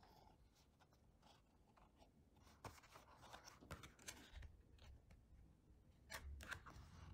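Thin clear plastic mold tray handled and turned over in the hands, giving faint crinkles and clicks. These come in clusters around the middle and again near the end, with a few soft bumps.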